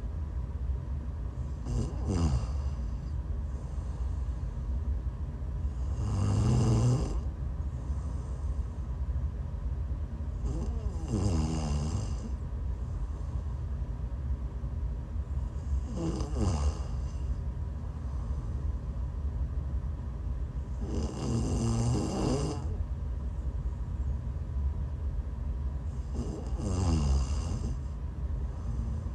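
A woman snoring in her sleep while sick: six snoring breaths about five seconds apart, several sliding down in pitch, over a steady low hum.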